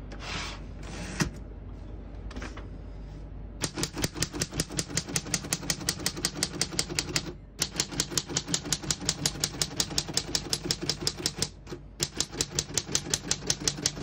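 Keys of a 1941 Corona Comet De Luxe portable manual typewriter striking in quick runs of about six keystrokes a second, with two brief pauses, after a few seconds of soft handling noise and a single click.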